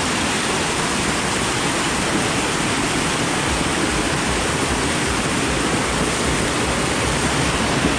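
Waterfall water rushing steadily over rock ledges and across a wet rock slab, heard close up as a loud, even rushing noise.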